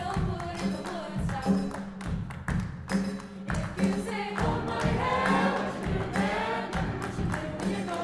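Mixed choir singing a rhythmic pop arrangement over a steady beat of hand claps and percussion, about two strokes a second, with a low repeated note underneath. The upper voices come in more strongly about four seconds in.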